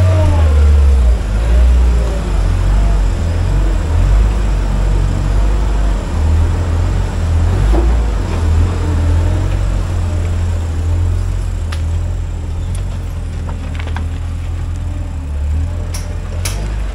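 LPG-powered Linde forklift engine running and revving up and down as the truck drives in and out over a slatted metal trailer floor. A few sharp clicks or knocks come in the last few seconds.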